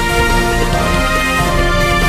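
News channel's outro theme music, with long held chords at a steady level.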